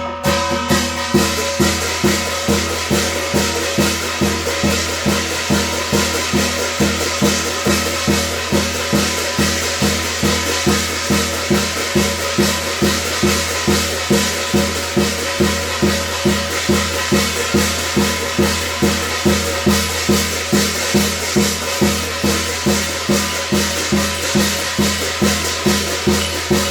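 Korean shamanic gut ritual music: drum and jingling percussion beating a steady, even rhythm of about two strokes a second, with held tones sounding above it.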